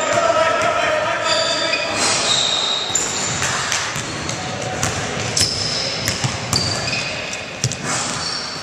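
Live court sound of an indoor basketball game in an echoing sports hall: the ball bouncing, repeated sharp knocks, short high sneaker squeaks on the floor, and players' indistinct voices calling out.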